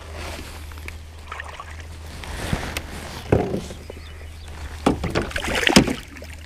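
Irregular knocks and thumps against the plastic hull of an Old Town Sportsman 120 fishing kayak, with sloshing in shallow water, as a person climbs out of it. The loudest knocks come about a second before the end.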